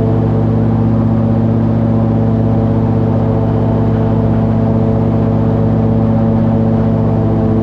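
Airboat engine and propeller running loud and steady at cruising speed, holding an even pitch.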